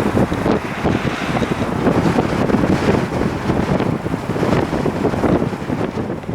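Strong gusty wind buffeting the microphone: a loud, uneven rumble with no clear engine tone.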